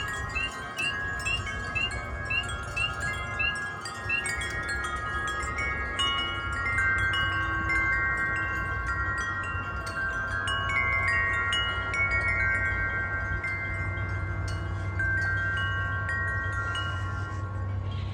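Several wind chimes ringing in gusty wind, with many long notes struck at different moments and overlapping. Over the first few seconds a spring peeper gives short rising peeps, about two a second. Low wind rumble runs underneath.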